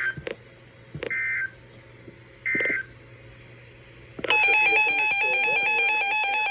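Three short bursts of EAS end-of-message SAME data tones, a harsh modem-like screech, mark the end of the weather warning. About four seconds in, a loud electronic alarm tone with stepping pitches begins.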